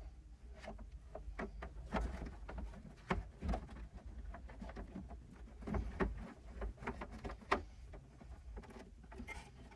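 Handling noise of wiring work: scattered light clicks, taps and rustles as an electrical wire is pulled along and clipped to a pickup bed's plastic liner and cap frame, over a faint low rumble.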